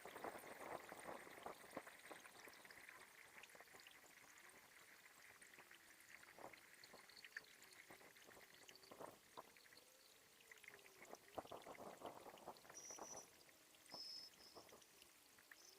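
Faint water sounds: quiet trickling and scattered small splashes or drips, with a few short high chirps near the end.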